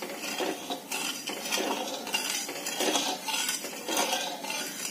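Flat metal spatula scraping and stirring sugar and water in a metal kadai, a run of scrapes about two a second, as the sugar is dissolved for a one-thread syrup.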